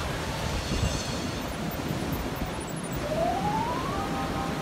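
Steady rush of surf and wind at the shore. A little after three seconds in, a single tone rises over about a second and then holds briefly.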